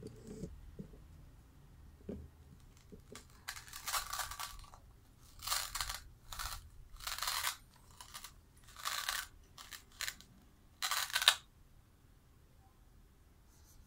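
A series of about nine short rasping, crinkling noises as a toddler handles plastic toy food pieces and the clear plastic bag on her lap. The last one, near the end, is the loudest.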